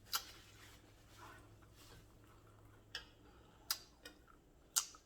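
Quiet eating sounds: a few sharp, separate clicks spread through, the loudest near the end, over a faint steady low hum.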